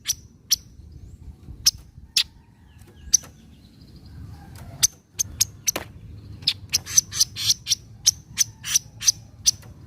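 Kaso-kaso bird's sharp 'nyecret' chattering call: a few single chips spread out at first, then a fast run of them in the second half.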